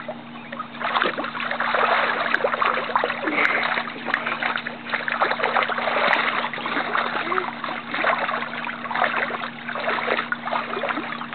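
Water splashing and sloshing in irregular surges as a child plays in a pool, over a steady low hum.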